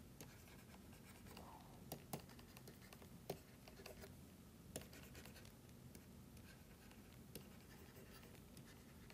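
Faint scratching and tapping of a stylus writing on a pen tablet, with a few irregular sharp clicks over a low steady hiss.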